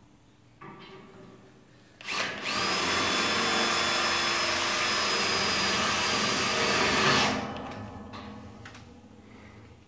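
Electric drill running at a steady speed for about five seconds, with a steady whine, then winding down.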